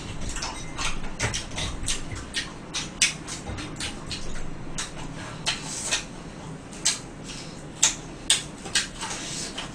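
Eating sounds of fried chicken: irregular short crunches and chewing, with light clicks of chopsticks and dishes.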